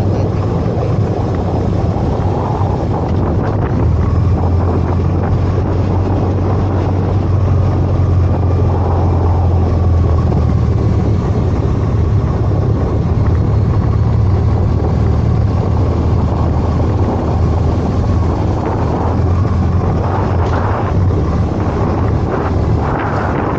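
Motorcycle engine running steadily at riding speed, a loud low hum, with wind rushing over the camera microphone.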